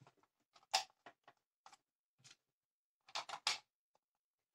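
Short plastic clicks and knocks from handling a power strip's plastic housing: one sharp click just under a second in, a few light ticks, then three quick clicks a little after three seconds in.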